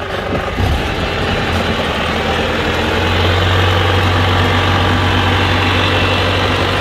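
Engine of a crawler-tracked rice-hauling machine running steadily as it drives past loaded with sacks of rice, its low drone growing stronger a couple of seconds in.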